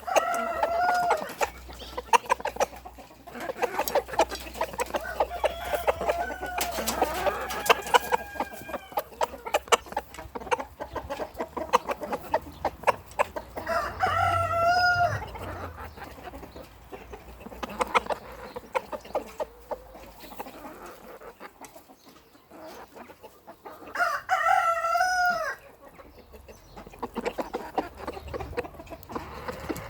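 Chickens clucking and pecking at corn, with a constant patter of sharp beak taps. A rooster crows twice, once midway and once near the end.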